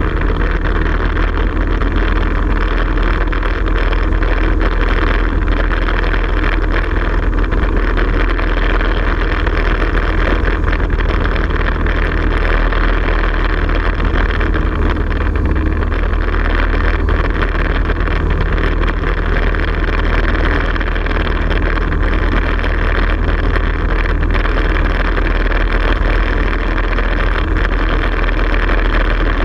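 A light aircraft's engine and propeller running steadily at high power through the takeoff roll and climb-out, heard loud and droning from inside the cockpit, with air rushing past the canopy.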